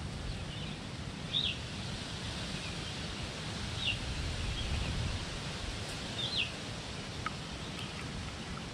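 Outdoor ambience: a steady low rumble, with a small bird giving three short, falling chirps spread a couple of seconds apart.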